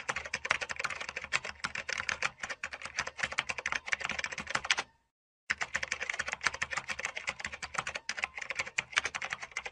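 Rapid, continuous typing on a mechanical keyboard: a dense stream of clacking keystrokes. The sound drops to dead silence for about half a second near the middle, then the typing resumes.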